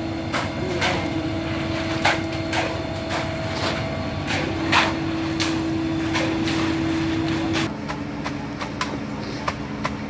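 Transit concrete mixer truck running with a steady hum while shovels and a hoe scrape through wet concrete, with sharp irregular clinks and knocks of the tools on the mix and rebar. The steady hum drops to a lower pitch near the end.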